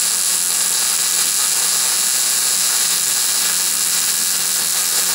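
Wire-feed welder arc running a weld: a steady, unbroken sizzling hiss.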